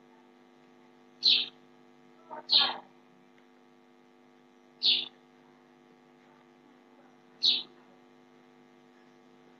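Faint, steady electrical mains hum, broken by a few short, sharp, hissy sounds: one about a second in, two close together near two and a half seconds, one near five seconds and one about seven and a half seconds in.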